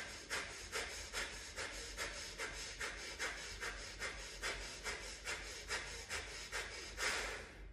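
Breath of fire through one nostril, the other held closed: rapid forceful exhales through the nose, about two and a half a second, ending with one longer, louder exhale about seven seconds in.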